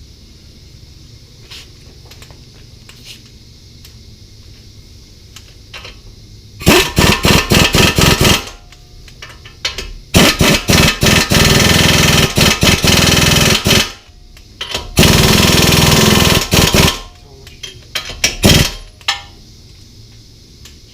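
Impact wrench hammering in four bursts, the longest about four seconds, driving home the bolts that hold a front air-ride bag strut on.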